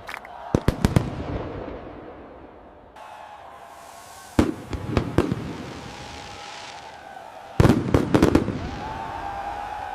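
Fireworks going off: sharp bangs and crackles in three clusters, the densest near the end.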